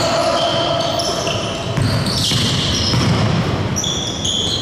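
Basketball game play on a gym floor: the ball bouncing and sneakers squeaking in many short, high chirps, with players' voices.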